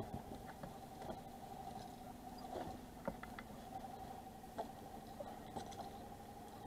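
Faint, steady hum of a boat's engine running, with a few light clicks and creaks scattered through it.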